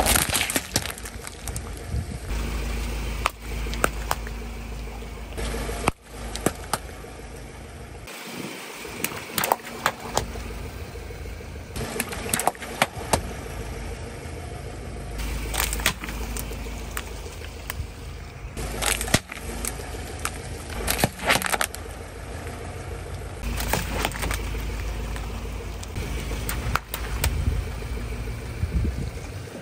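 A car tire rolling slowly over plastic cups full of water beads, crushing them: repeated sharp cracks and pops of plastic with wet squashing of the beads, over a low rumble of the car's engine and tires.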